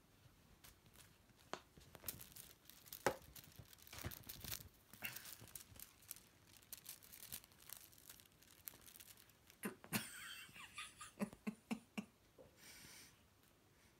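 Kittens scuffling on a fleece blanket: soft rustling of fabric with scattered light scratches and clicks as claws catch the cloth, busiest about ten seconds in.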